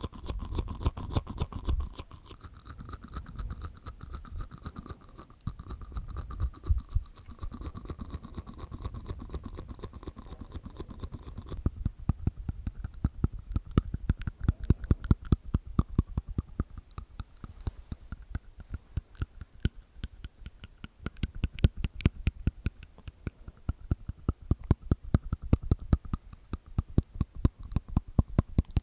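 Close-miked ASMR mouth sounds: wet clicks and pops from the tongue and teeth inside the mouth, in a dense run. About halfway through they become faster and more even, several clicks a second.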